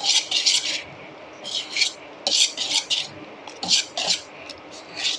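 Wire balloon whisk beating thick, still-lumpy flour batter in a stainless steel bowl, the wires scraping the metal in quick strokes that come in bursts of two or three with short pauses between.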